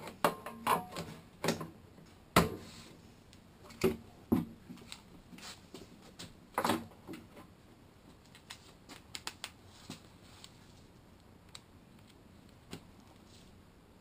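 Scattered clicks and knocks of parts being handled and fitted onto a lawn mower's Briggs and Stratton engine during reassembly, with a few louder knocks in the first half and only sparse faint ticks later.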